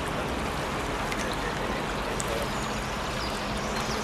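A small brook babbling steadily, with a few faint, high bird chirps late on.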